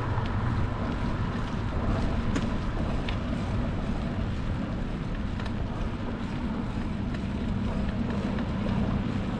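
Wind rushing over the microphone of a moving bicycle, with a steady low road rumble and a few faint ticks.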